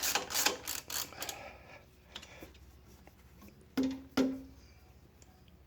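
Freshly tensioned alternator drive belt on a Subaru EJ20 being plucked twice, each pluck a short low twang. Its pitch is being used to judge the belt tension, which sounds right. A quick run of sharp clicks comes first.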